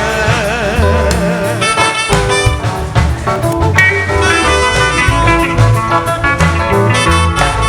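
Instrumental band music between sung lines: a wavering lead melody, possibly a saxophone, over bass and a steady beat.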